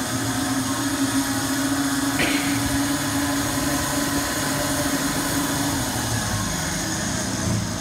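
Maxima S-Plus S2120 dual-spindle coil winding machine running steadily under program control, its spindle motor humming as it winds enamelled copper wire onto the first section of a cooler pump coil bobbin.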